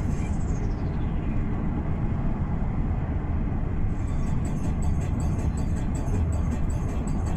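Steady low rumble of a moving vehicle. Music with a beat sweeps away at the start and comes back in about four seconds later.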